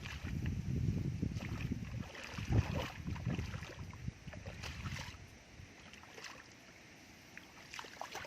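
Muddy water sloshing, with low rumbling and scattered splashes and clicks, dying down after about five seconds.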